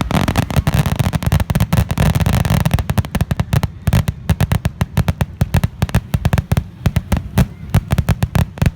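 Grand finale of a fireworks display: a rapid barrage of aerial shell bursts, dense and crackling for the first few seconds, then separate loud bangs coming several a second.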